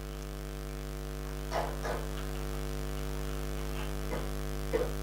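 Steady electrical mains hum, a low buzz with several steady higher tones above it. A few faint, short sounds come through it about one and a half seconds in and again near the end.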